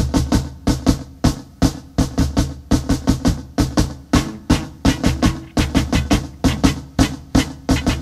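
Rock band recording of the song's instrumental opening: a drum kit keeps up a fast, even beat of hard hits, about three a second, over sustained bass guitar notes.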